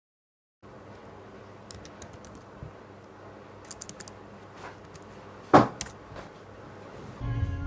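Scattered light clicks and taps over faint background noise, with one louder knock about five and a half seconds in. Music starts just before the end.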